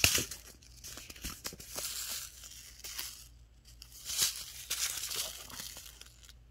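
Paper seed envelopes rustling and scraping as they are handled and turned over, with the loudest rustles right at the start and again about four seconds in.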